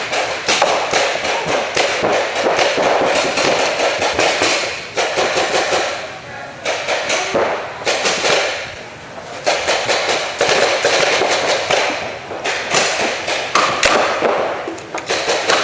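Paintball markers firing reusable rubber reballs in an indoor arena: a dense run of sharp shots and impacts, several a second, with brief lulls.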